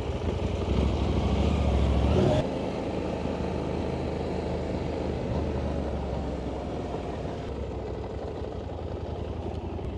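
KTM Adventure motorcycle engine running while riding. It is louder for the first two and a half seconds, then drops and runs steadily at a lower level.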